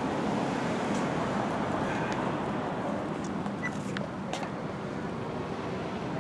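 Steady background noise of road traffic, with a few faint clicks.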